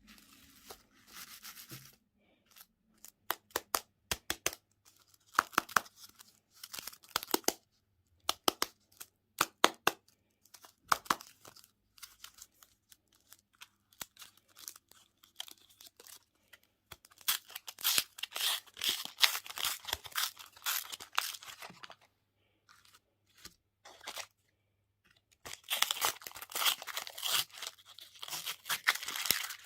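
Close-up eating and packaging sounds from sweets: sharp bites and crunching, with wrapper tearing and crinkling, coming in bursts with short pauses and thickest in two long stretches in the second half.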